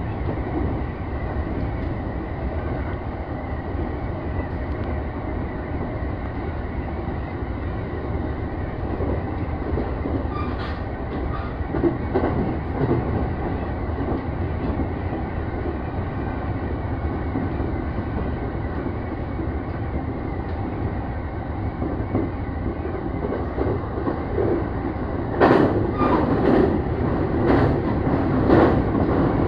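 Electric commuter train running at speed: a steady low rumble of wheels and running gear. Its wheels clack over the rail joints a few times about twelve seconds in, and a louder run of clacks comes in the last few seconds.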